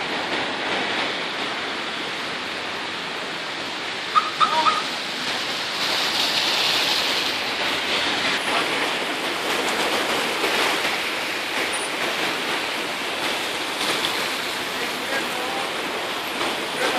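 Floodwater rushing steadily: the Lybid river overflowing its concrete banks and pouring fast across a street. About four seconds in, three short, sharp calls stand out over the water.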